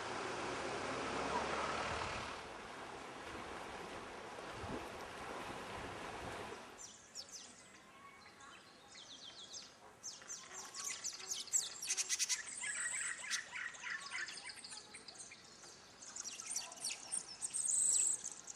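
Steady rush of river water over rocks that cuts off after about six and a half seconds, followed by forest birds chirping and calling in quick trills, some rising and falling.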